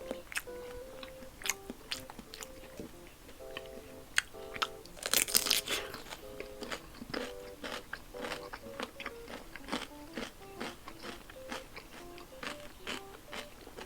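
Close-up eating sounds: wet chewing and crisp crunching bites, with the loudest run of crunches about five seconds in. Soft background music plays under it.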